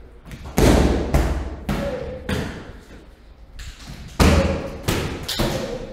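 Punches and kicks landing on Thai pads: two flurries of heavy slapping thuds, three or four strikes each, with a short lull between.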